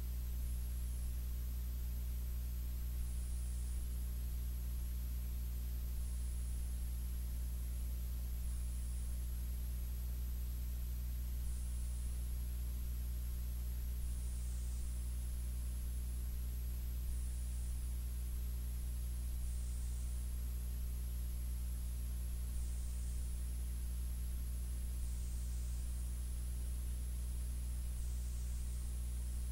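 Steady electrical mains hum with its overtones, a faint hiss and a faint high whine that dips now and then. This is the recording's noise floor, with no programme sound yet.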